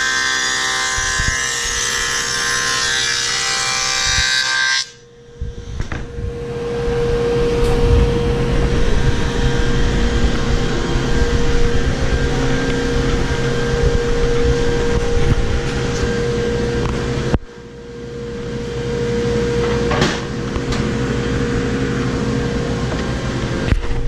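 Table saw running with a steady multi-tone whine while a plywood panel is fed across its sliding table. It stops abruptly and is followed by a rougher, lower machine noise with a steady hum.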